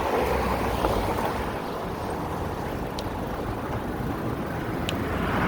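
Steady wind rush and road rumble from riding a fat-tire e-bike, with two faint ticks.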